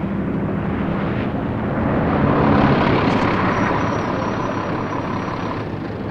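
Renault coach bus driving past on the road: a steady engine hum with tyre and wind rush that swells to its loudest about two and a half seconds in, then slowly fades as the bus pulls away.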